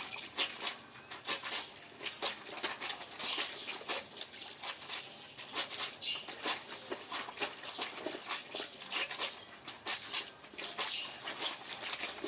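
Dense, irregular rustling and clicking, with a small bird's short high chirp every second or two.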